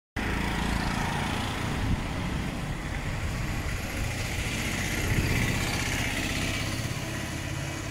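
Steady engine and road noise of a moving vehicle.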